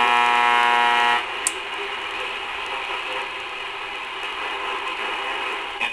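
Vintage RCA 262 tube radio's speaker putting out a steady buzzy tone that cuts off about a second in, followed by a click and then a steady hiss of static as the set is tuned off station.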